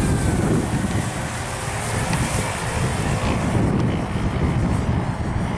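Wind buffeting the microphone, with the faint high whine of a Walkera F210 racing quadcopter's motors shifting in pitch as it flies.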